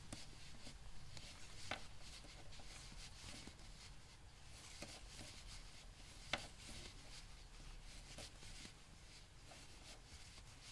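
Knitting needles working yarn, heard faintly as soft rubbing with a few light clicks, the sharpest about six seconds in.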